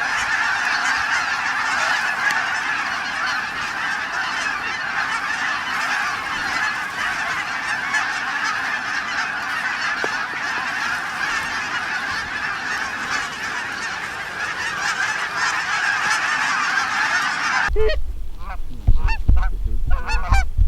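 A large flock of geese honking in a dense, continuous chorus of overlapping calls. About three seconds before the end the sound changes abruptly to wind buffeting the microphone, with separate, distinct honks standing out.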